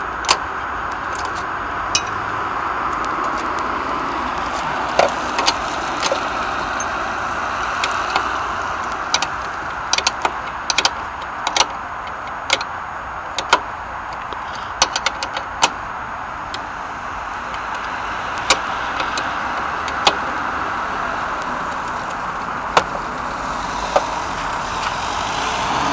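Steady roar of road traffic, with irregular sharp metallic clinks of a spanner and tools working on the motorcycle's wheel fittings.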